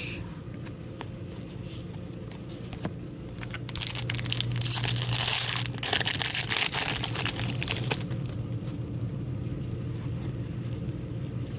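An Upper Deck Series 2 hockey card pack's wrapper crinkling and tearing as it is ripped open, for about four seconds starting a few seconds in. Light clicks of cards being handled come before and after it.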